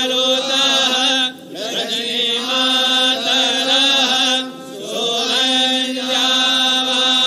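A group of voices chanting a mantra in long held notes on one steady pitch, breaking off briefly for breath about a second in and again around the middle.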